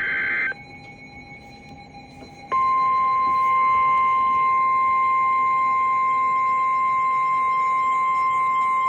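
NOAA Weather Radio alert: the tail of the SAME header's warbling data burst, a pause of about two seconds, then the steady 1050 Hz Warning Alarm Tone sounding continuously, signalling that a warning, here a severe thunderstorm warning, is about to be read.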